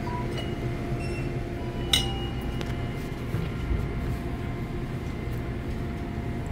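A single light metallic clink about two seconds in, ringing briefly, with a few faint ticks, over a steady low background hum.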